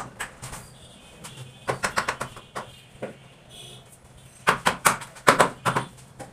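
Hammer blows while a plastic bathroom door frame is being fixed in its opening: a quick run of about five knocks near two seconds in, a couple of single knocks, then a louder run of six or seven knocks from about four and a half seconds.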